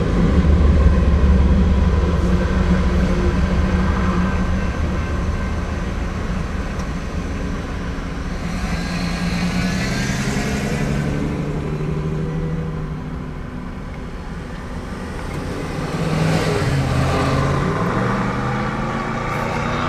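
The rear GE Dash 9-44CW diesel locomotive rumbles low as it passes and fades away over the first few seconds. Road vehicles then drive over the crossing, and a car engine accelerates in the last few seconds.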